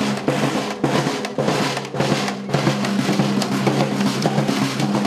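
School marching band's snare and bass drums beating a steady marching rhythm, over a steady low hum.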